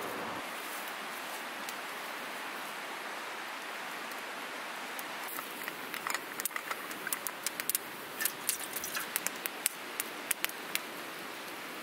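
Wood campfire crackling, with many sharp, irregular pops from about five and a half seconds in over a steady background hiss.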